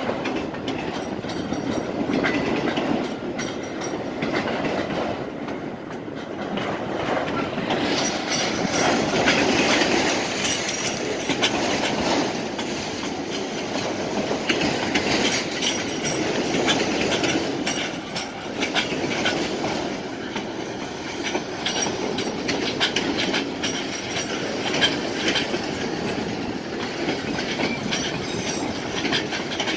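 Freight cars of a passing train, autoracks then boxcars and hoppers, rolling by close up: a steady rumble of steel wheels on the rail, with repeated clicks as the wheels cross the rail joints. It grows brighter and sharper about eight seconds in.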